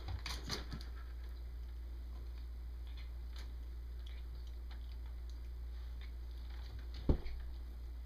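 Light taps and rustles of a cat batting a hanging feathered toy bird with its paw, over a steady low hum, with one sharp thump near the end.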